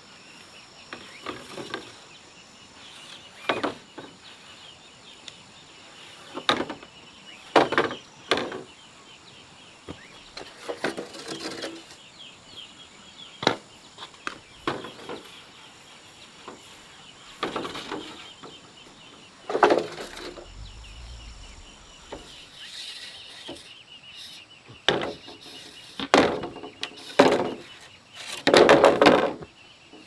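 Irregular chopping and knocking on wood: single strikes and short clusters of blows at uneven gaps, with a longer run of rapid blows near the end. Insects chirr steadily behind.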